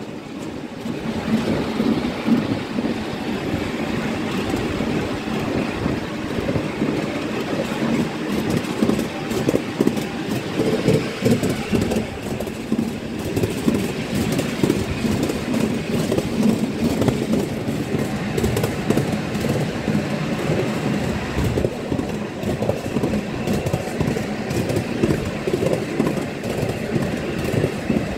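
Miniature railway train running along its track, heard from an open passenger car: a steady rumble with continual rattling and clicking of the wheels on the rails.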